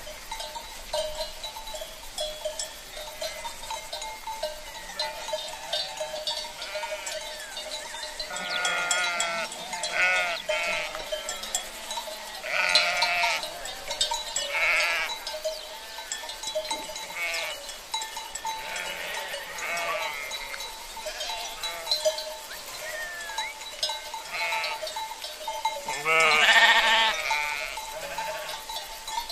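A flock of fat-tailed sheep bleating: a string of wavering calls from several animals, scattered and overlapping, the loudest near the end.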